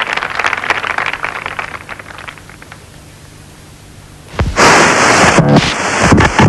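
Applause dying away over the first couple of seconds, then a lull, and about four seconds in a sudden loud hiss and crackle of static from an old cabinet radio being tuned, with a faint steady whistle in it.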